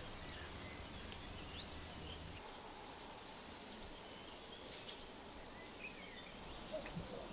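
Quiet outdoor ambience with faint, scattered bird chirps and a low background hum that drops away about two and a half seconds in.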